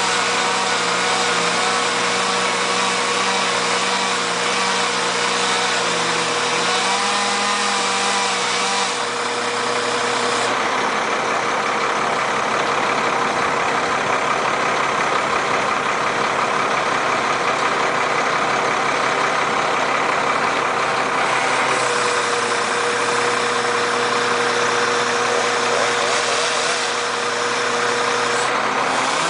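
Engine running steadily, its tone shifting about ten seconds in and settling back about eight seconds before the end.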